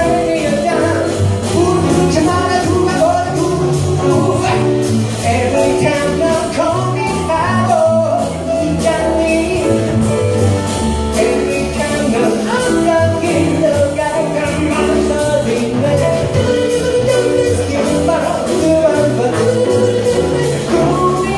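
Live jazz band playing: upright double bass, grand piano and drum kit with cymbals keeping a steady beat, with a man singing into a microphone over it.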